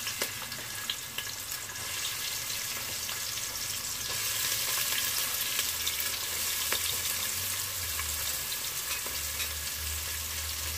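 Chopped onions sizzling steadily in a pot of hot oil as they are tipped in from a cutting board, with a few small ticks and pops: the start of frying onions for a curry base.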